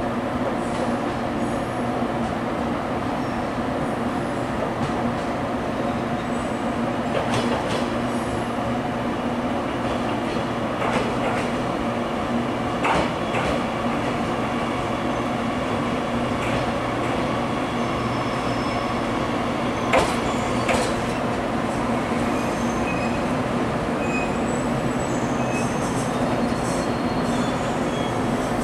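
JR Kyushu 813 series electric train pulling into a station platform and drawing to a stop, over a steady background hum. A few sharp clicks come through the run-in, and short high whines come near the end as it stops.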